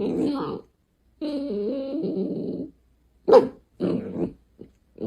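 A dog talking back with grumbling, whining vocalisations in several bursts. There is a short one at the start, a longer one wavering in pitch about a second in, then a few short sharp ones near the end.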